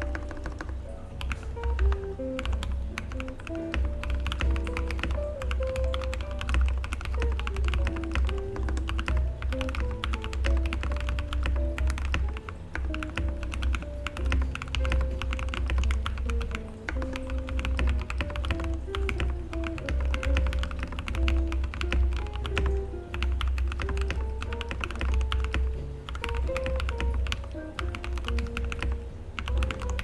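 Continuous fast typing on a tape-modded Royal Kludge RK100 mechanical keyboard with its stock red linear switches: a dense, uneven run of key clacks. Background music with a pulsing bass plays under the typing.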